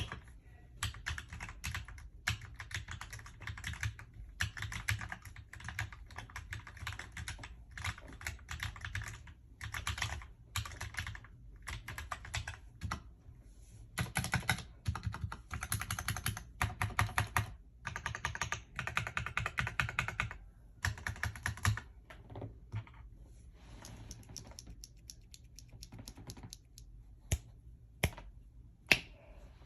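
Typing on a mechanical keyboard fitted with Akko CS Rose Red 43 gf linear switches: a steady run of quick keystrokes that thins out about two-thirds of the way through to scattered single key presses.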